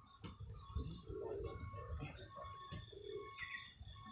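Birds calling, with low cooing calls, over a steady high insect whine.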